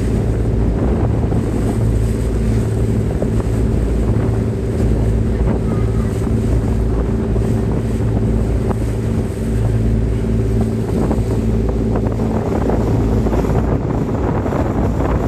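Boat engine running steadily with a constant hum, with wind buffeting the microphone.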